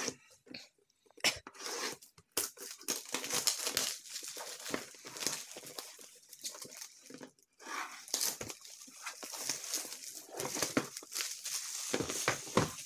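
Clear plastic shrink-wrap being slit with a small cutter and torn and crinkled off a cardboard ration box, a run of rustling and tearing broken by sharp little clicks and knocks of the box.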